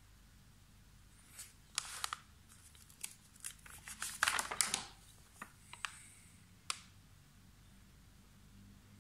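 Stiff paper pages of a 1962 sticker album being turned by hand: a run of dry rustles and crinkles from about a second and a half in, loudest around the middle, ending in a few sharp ticks near seven seconds.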